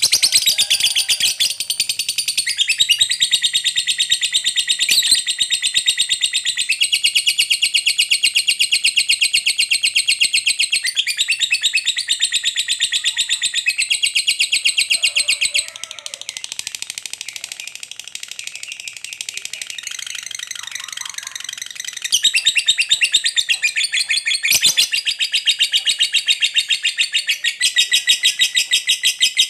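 Lovebird singing its long 'ngekek panjang' song: an unbroken, fast, high-pitched chattering trill, the sign of a bird in full song ('gacor'). The trill goes softer for several seconds midway, then comes back loud.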